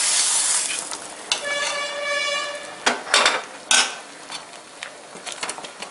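Hot oil tempering of mustard seeds and asafoetida sizzling as the iron tadka ladle is dipped into the simmering sambar, the hiss dying away within the first second. A steady ringing tone follows for about a second and a half, then several metal clanks of a ladle against the aluminium pot and a few lighter knocks while stirring.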